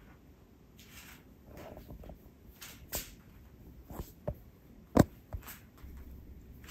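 A few sharp hand slaps and claps, the loudest about five seconds in, with lighter taps around it.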